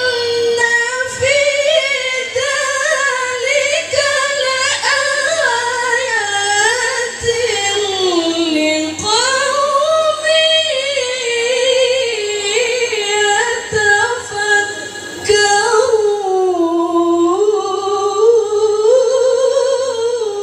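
A woman (qari'ah) reciting the Qur'an in melodic tilawah style into a microphone. She sings long held phrases with wavering, ornamented turns that glide up and down in pitch, with short breaths between phrases.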